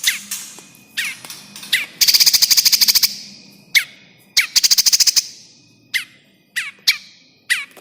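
Prinia (prenjak) distress calls: sharp chirps that each drop steeply in pitch, repeated every half second to a second, broken twice by a fast harsh rattle of about a dozen notes a second lasting around a second. This is the 'pinched' (kejepit) alarm of a trapped prinia, a call played as a lure to draw birds in.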